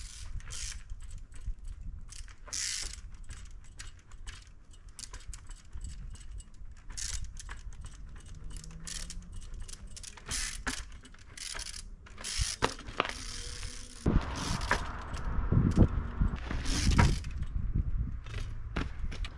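Crewkerz Jealousy 20-inch trials bike ridden over rocks: its freewheel ratchet clicks in quick runs again and again. Louder low knocks and rumbling come in the last few seconds.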